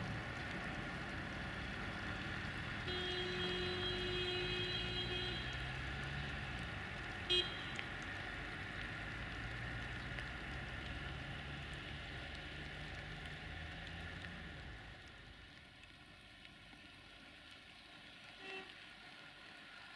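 Diesel railcar engine running and fading steadily as the railcar moves away. About three seconds in, a horn gives one toot lasting about two and a half seconds, with a short blip a few seconds later.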